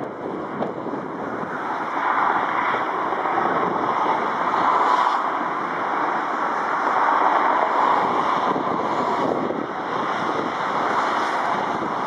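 Distant noise of a twin-engine cargo jet rolling out after touchdown, swelling and fading, with gusty wind on the microphone.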